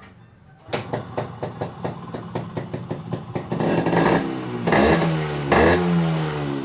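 Yamaha RX100 two-stroke single-cylinder motorcycle engine started up: it catches under a second in and runs with a quick, even popping, then is revved up sharply twice. The mechanic says the engine runs clean, with no vibration and no piston-ring noise.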